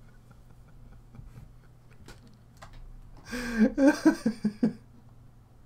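A man laughing: a short burst of several chuckles about three seconds in. Before that there is quiet room tone with a few faint clicks.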